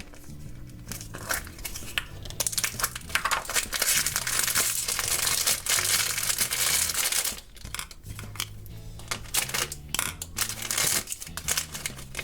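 Toy blind bag wrapper crinkling as it is torn open and handled by hand, densest for about five seconds in the middle, then scattered crackles; background music plays underneath.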